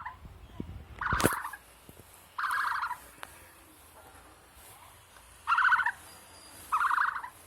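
Four short, rapidly pulsing rattling calls from a large bird, each about half a second long and spaced irregularly. A sharp click falls during the first call.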